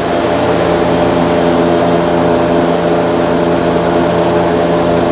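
Steady mechanical drone at one fixed low pitch, a machine running, that swells slightly in the first second and then holds even.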